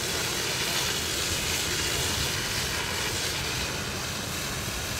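Fire hose nozzle spraying a steady water jet onto a burning building: an even rushing hiss.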